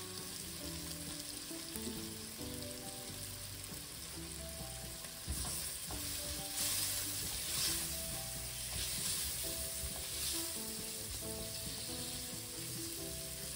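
Sliced onions sizzling in hot oil in a stainless steel pot, stirred with a silicone spatula; the sizzle grows louder from about five seconds in. A soft background melody plays underneath.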